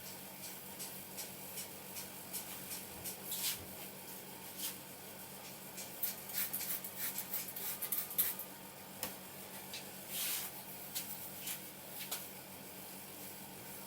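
Hands working through hair and over the scalp in a head massage: irregular soft rustles and small clicks, busiest in the middle of the stretch.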